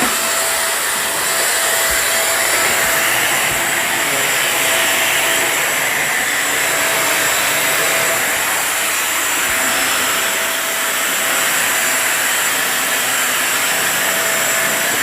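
Britânia vacuum cleaner motor running steadily with an even rushing airflow and a steady whine, on a test run after its filter was replaced.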